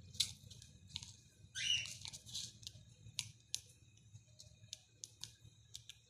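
Loose seed grains rattling and scratching in a plastic tub as a cockatiel wriggles and flaps its fluffed-up body in it: scattered sharp little clicks, with a denser rustling burst about a second and a half in.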